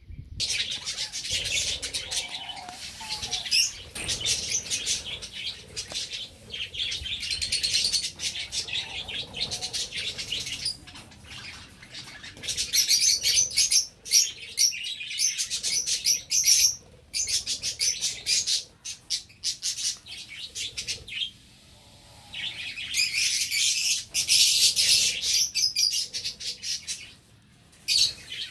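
A flock of budgerigars chattering: a dense, continuous warble of chirps and squeaks, with a short lull a little after the middle.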